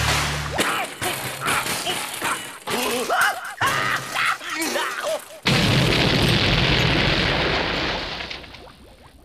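Cartoon explosion sound effect: a sudden loud blast about five seconds in, rumbling on and fading away near the end. Before it comes a run of short cartoon sounds with sliding pitches.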